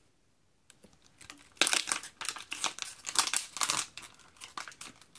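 Thin plastic water bottle, twisted tight, crinkling and crackling as it is handled in the hand, in irregular bursts of clicks after a quiet first second or so.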